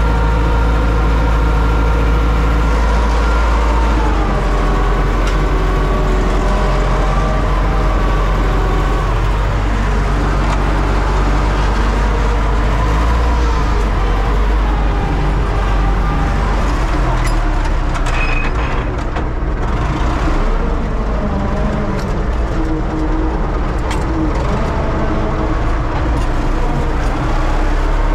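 Universal U650 tractor's four-cylinder diesel engine running steadily as the tractor drives, heard inside the cab. Its note shifts a few times as the revs change, with a few light knocks about two-thirds through.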